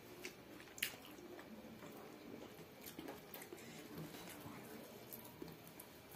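Close-up eating sounds as rice and spicy pork ribs are eaten by hand: mouth clicks and chewing, the loudest click about a second in. Later come soft wet squishes and small clicks as fingers mix rice with curry on the plate.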